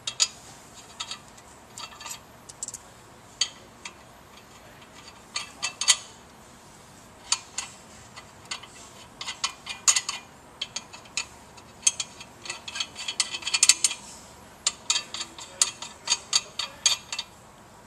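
Hex nuts being run by hand onto the steel stay bolts of a Grundfos CR10 vertical multistage pump head: scattered light metal clicks and ticks of nut on thread and washer, coming in quick runs.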